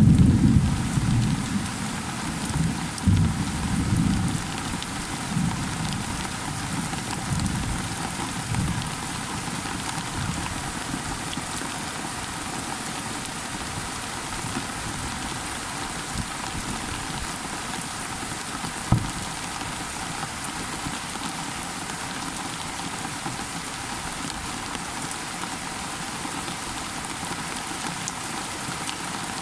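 Steady heavy rain falling on surfaces, with a roll of thunder rumbling low at the start that dies away over the first several seconds. There is one short low thump about two-thirds of the way through.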